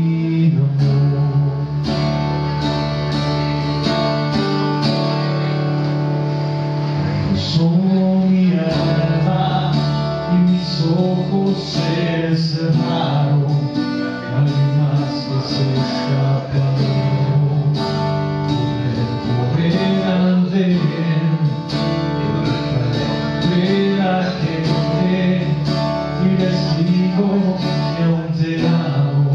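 Acoustic guitar strummed and picked while a man sings along, a live solo acoustic song.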